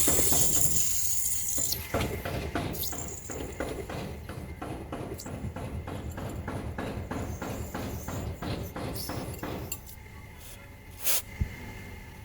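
Fuel injectors firing on an injector test-and-cleaning bench: a loud spray hiss for the first couple of seconds, then an even run of ticks, about three a second, as the injectors are pulsed. The ticking stops near the end, followed by two short sharp clicks.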